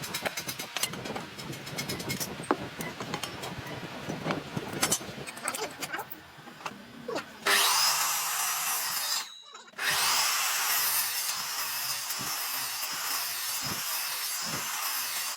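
Tool work on timber: a run of light knocks and scraping on wood, then about halfway in a handheld power tool starts working the wood with a loud, steady noise, stops for half a second and starts again.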